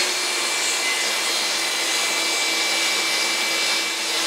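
Shop vacuum motor running steadily: an even rushing noise with a faint constant whine.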